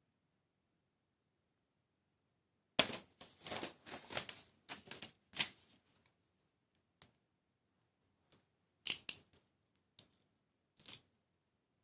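Small model-kit parts and tools handled on a work surface: near silence, then about three seconds in a quick flurry of clicks and rustles, followed by a handful of separate clicks.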